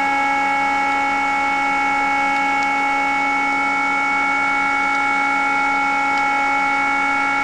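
Cooling fan of an NJT-5123 Ku-band BUC running steadily: a loud, even whir with several steady whining tones over it. A few faint clicks sound as front-panel buttons on the modem are pressed.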